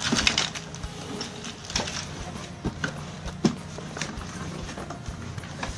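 A clear plastic bag full of small plastic toy accessories being handled: it crinkles and rattles, with scattered sharp clicks and knocks, one of them loud about three and a half seconds in.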